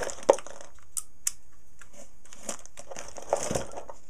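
Hands rummaging through a cardboard box of old switches and parts: plastic bags crinkling and small parts clicking against each other, with one sharp click about a third of a second in and more rustling near the end.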